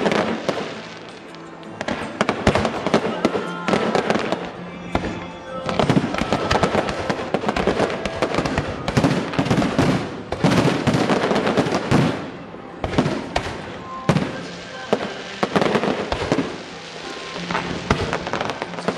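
Aerial fireworks shells bursting in rapid, overlapping succession: dense bangs and crackling with a few brief lulls.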